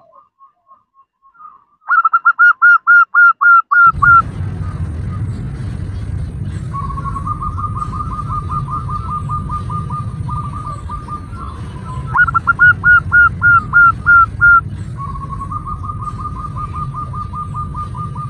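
Female zebra dove calling: a loud run of quick staccato coos, about four a second, about two seconds in and again about twelve seconds in, with softer, faster runs of coos in between and near the end. A steady low background rumble sets in about four seconds in.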